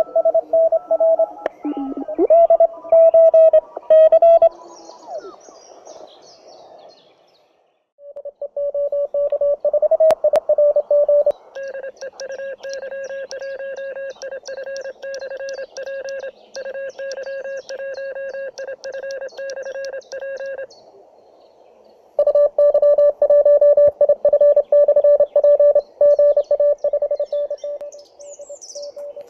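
Morse code tones from a homemade 1 W transceiver, heard through a small portable speaker. As the receiver is tuned the pitch glides, then it settles on a steady keyed tone of about 600 Hz that comes in rapid on-off dots and dashes. The keying stops twice for a second or two.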